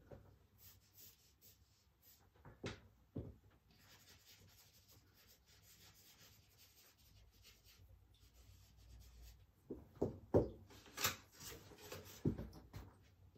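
A hand working a charcoal drawing on paper: faint rubbing and scratching strokes, then a few louder knocks and thumps in the last few seconds.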